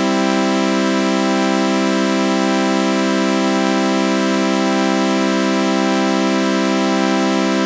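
Synthesized sawtooth-wave chord held as a steady drone, with a flanger effect giving it a slow, sweeping shimmer.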